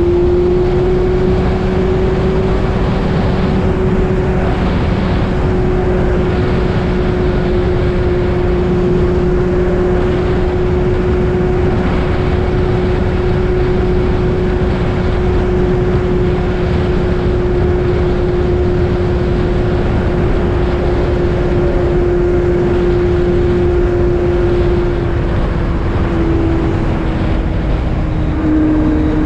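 Kawasaki Z750 inline-four with an Arrow exhaust, heard while riding: the engine holds a steady drone at constant revs over a steady rush of noise. Its pitch dips slightly near the end as the revs ease off.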